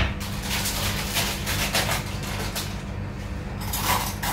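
Rapid light clicks and rustling handling noises over a steady low hum.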